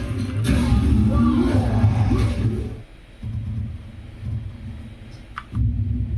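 Football video game's stadium crowd sound: chanting with a wavering pitch over a low crowd rumble, dropping suddenly about three seconds in to a quieter steady rumble that swells again near the end.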